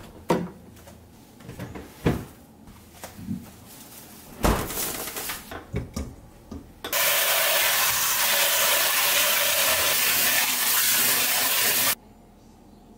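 Light knocks and clatter of kitchen things being handled. Then a tap runs water hard into a stainless steel bowl in the sink for about five seconds and cuts off suddenly.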